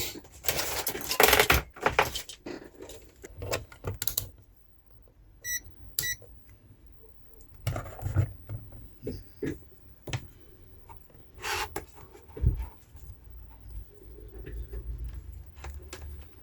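Rummaging and clattering among tools, then two short electronic beeps from a digital multimeter being switched on, followed by scattered handling clicks and knocks.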